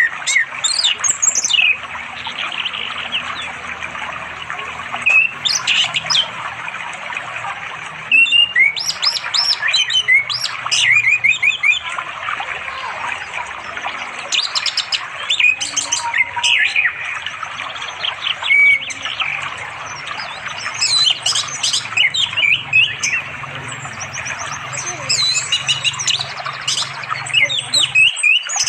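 Orange-headed thrush singing in repeated phrases of quick, varied chirps and whistles a few seconds apart, a male calling to a female. A steady rush of flowing stream water runs underneath.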